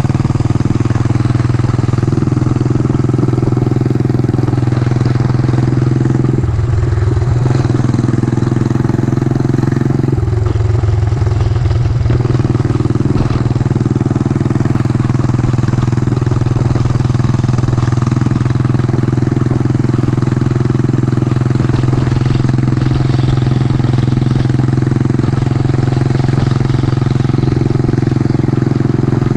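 Yamaha SR400's single-cylinder four-stroke engine running steadily while the motorcycle is ridden, its note briefly changing about six and a half seconds in and again around ten seconds in.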